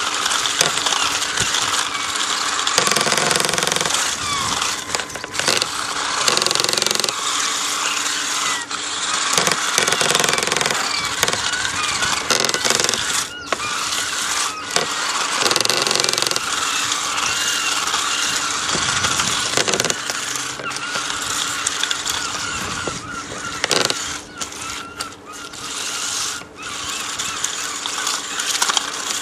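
Remote-control cars driving, their small electric motors whining over a continuous rough noise that cuts out briefly now and then as the cars slow or stop.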